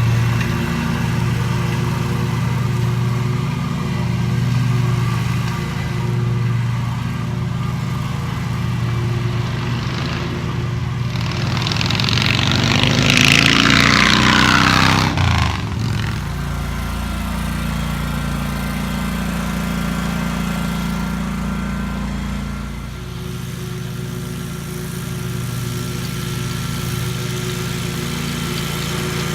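An engine running steadily. Midway, a louder rushing passage swells and then falls in pitch before the engine carries on at a slightly changed tone.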